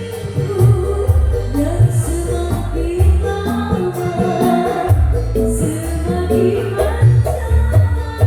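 A song with singing, tambourine-like percussion and a heavy bass line, played through a PA sound system being set up on an analog mixing desk.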